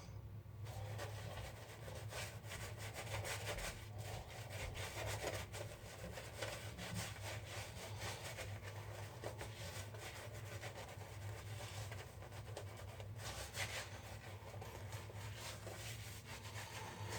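Shaving brush whipping shaving cream into lather in a 3D-printed plastic shave bowl: a continuous, quick, scratchy swishing of bristles and cream rubbing against the bowl.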